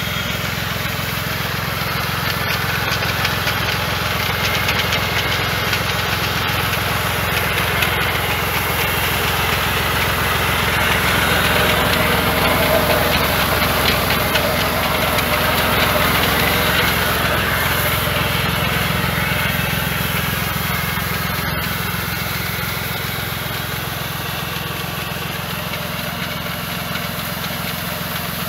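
Başak 2043 tractor's diesel engine running steadily, driving the Doğanşahin D120 piston pump of a 1000-litre sprayer. A hiss, likely the high-pressure spray, is mixed in and grows louder for a while in the middle.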